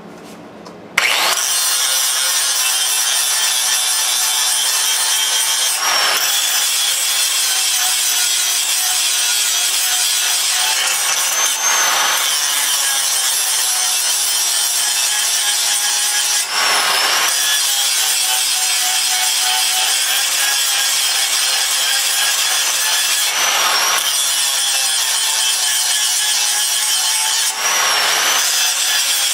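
Angle grinder grinding the cutting edge of a steel lawn mower blade, starting about a second in and running on steadily. The tone briefly changes every few seconds as the disc is passed along the edge.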